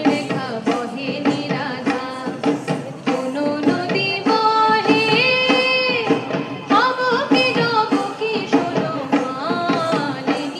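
Indian folk dance music: a two-headed barrel drum beating a steady rhythm under a flute and singing, with a long wavering held note about halfway through.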